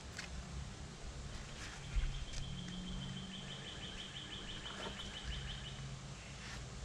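A bird's trill of rapid, evenly repeated high notes lasting about four seconds, over a low steady hum, with a few sharp clicks.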